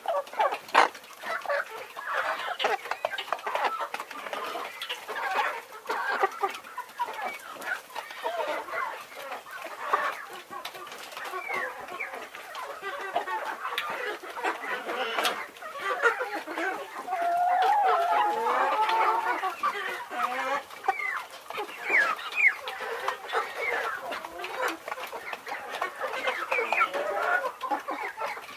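A flock of chickens clucking, with many short calls overlapping.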